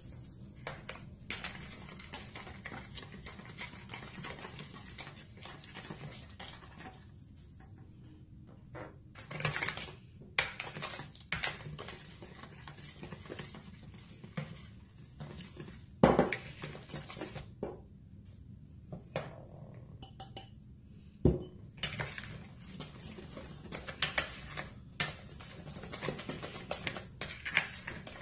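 Wire whisk stirring and scraping through a thickening semolina-and-coconut batter in a mixing bowl, with clinks of glassware. There are two sharp knocks in the second half.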